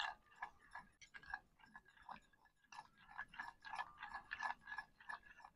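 Steel spoon stirring a flour-and-water paste in a glazed clay bowl: faint, quick, repeated scrapes and taps against the bowl. The flour is being beaten smooth so that no lumps form, ready to thicken nihari.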